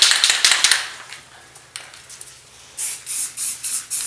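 Aerosol spray paint can rattling as it is shaken, then spray paint hissing out in short pulses, about three a second, starting near the end.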